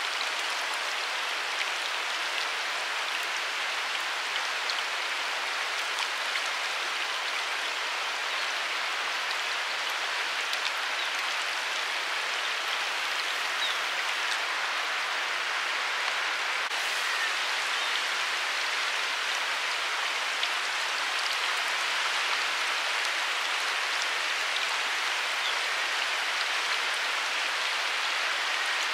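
Steady water noise, an even hiss with faint scattered ticks, from water on or around the river's surface.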